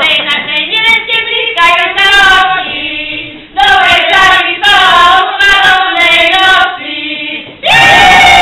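A group of women singing a Slovak folk song without instruments, in short phrases with brief breaths between them. Near the end they hold one long, loud note.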